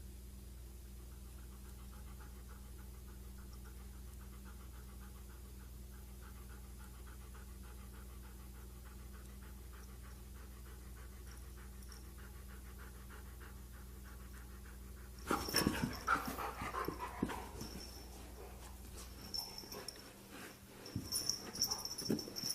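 A dog panting in a fast, even rhythm, then louder irregular noises from about fifteen seconds in and again near the end.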